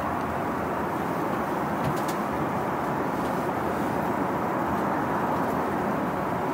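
Steady cabin noise of an Airbus A380 airliner in cruise, an even rushing hum from the engines and airflow, with a couple of faint ticks about two seconds in.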